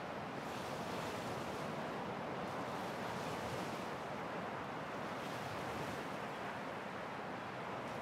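Ocean surf washing onto a beach: a steady rush of breaking waves that swells and eases every couple of seconds.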